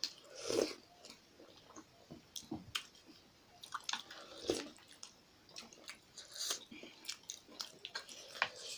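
Close-up wet chewing and biting of momo dumplings in soupy jhol: irregular mouth clicks and smacks, the loudest about half a second in.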